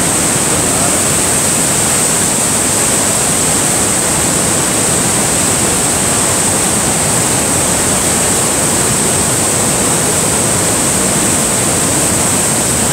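Loud, steady rush of Niagara Falls' water crashing onto the rocks close by, an unbroken roar of falling water.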